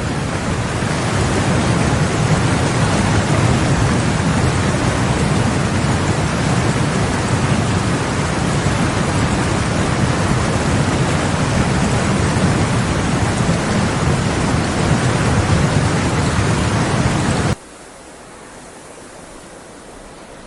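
Loud, steady rush of water during the flooding, a dense noise with a deep rumble under it. It cuts off abruptly near the end to a much quieter, steady hiss.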